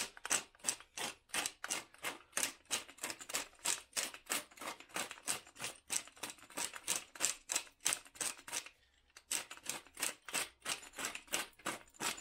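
Wooden pepper mill grinding black peppercorns, a fast run of dry clicking strokes about four a second, with one short pause about nine seconds in.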